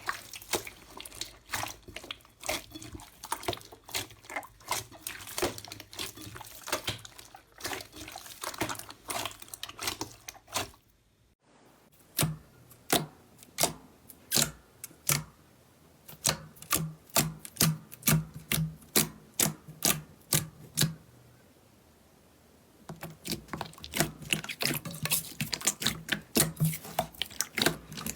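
Slime being squeezed and poked, making rapid sharp clicking and popping sounds. A brief pause comes about 11 seconds in, then the clicks go on at roughly two a second.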